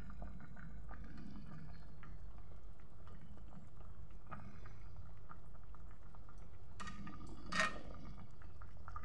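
A pot of soup boiling hard on a gas burner, a steady bubbling. There is a short sharper sound, likely the skimming ladle, about seven and a half seconds in.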